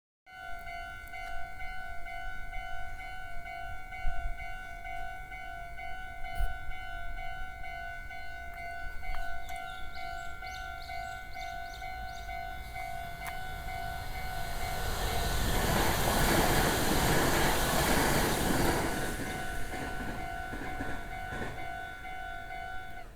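Railroad crossing warning bell ringing in a fast, even repeating pattern. About fifteen seconds in, a train passes with a loud rush that builds and fades over about four seconds, and the bell rings on after it.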